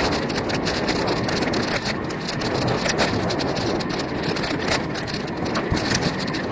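Action-camera audio of an e-mountain bike riding a dirt forest singletrack: steady rumble of tyres on dirt and wind on the microphone, with frequent small clicks and rattles from the bike and camera mount. Grass and plant stems brush against the bike near the end.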